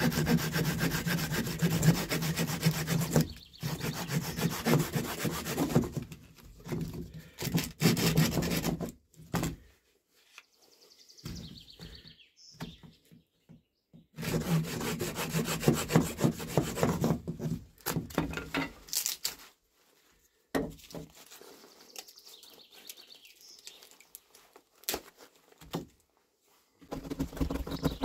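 Folding hand saw cutting through a birch log with quick back-and-forth rasping strokes. The strokes come in several bouts, with short pauses between them and a longer quiet gap about ten seconds in.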